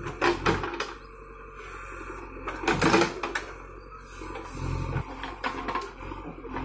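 JCB 3DX backhoe loader at work: its diesel engine running while the bucket digs and scrapes through loose soil, with clattering knocks near the start and the loudest scrape about three seconds in.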